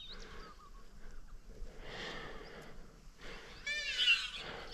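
A feral pig squealing once near the end, a short high squeal from the mob being stalked.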